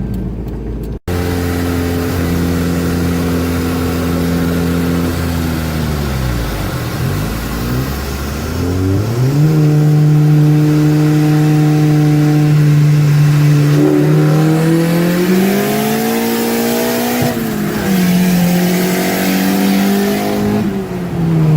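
Turbocharged car engine running under load, its pitch holding steady, dropping away about halfway, then climbing in steps as it revs back up and falling again near the end.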